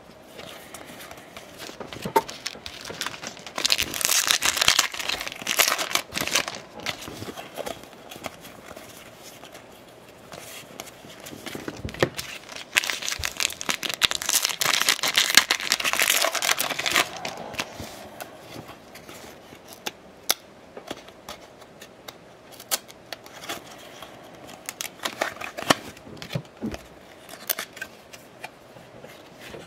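Trading-card pack wrappers being torn open and crinkled in two spells, with light clicks and slides of baseball cards being shuffled and handled between them.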